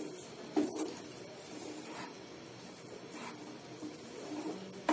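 Wooden spatula stirring a thick mash of ground bread and milk in a non-stick pan: soft scraping with a few light knocks against the pan.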